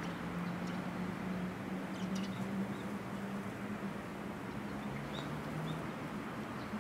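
Steady outdoor background noise with an even low hum, and a few faint, short bird chirps scattered through.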